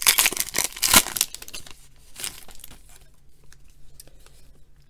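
Foil wrapper of a Panini Certified football card pack being torn open and crinkled, loudest for about the first second, then fading to softer rustling as the cards are handled.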